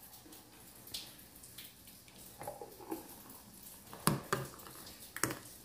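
Thick strawberry-banana smoothie poured from a blender jug into a glass mug: faint soft pouring, with a few light knocks, the loudest about four seconds in.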